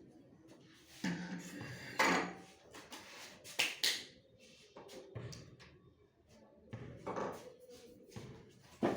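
Irregular knocks and taps of a printer and its parts being handled during repair, a handful of separate hits with short gaps between them.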